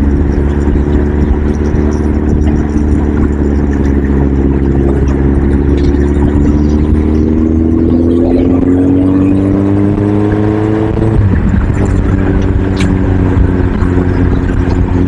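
A vehicle's engine running under a heavy low wind rumble. Its pitch rises gradually for several seconds as it accelerates, then drops suddenly about eleven seconds in, as at a gear change, and settles steady again.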